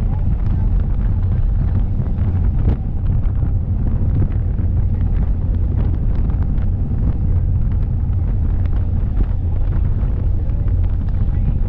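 Wind buffeting the microphone on the open deck of a moving water taxi, over a steady low rumble from the boat's engines and the rush of its wake.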